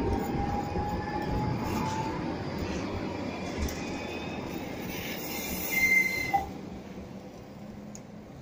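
Modern electric low-floor tram running past on its rails and pulling away, its sound fading as it recedes. About five seconds in there is a brief high wheel squeal.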